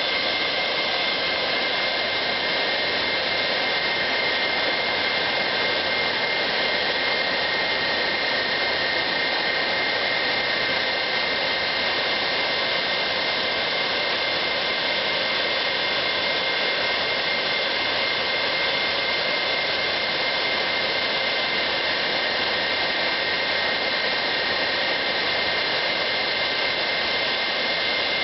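Jet aircraft engine running steadily: an even rushing noise with a constant high whine, holding the same pitch and level without spooling up or down.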